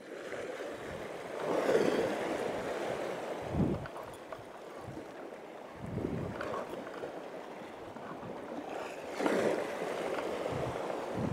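Sea waves washing against a rocky shore, surging twice, with wind buffeting the microphone in a few low thumps.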